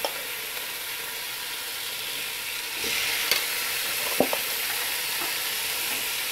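Marinated beef strips sizzling as they go into hot oil with softened onions in a frying pan. The sizzle grows louder about three seconds in as more meat is added, with a few short knocks.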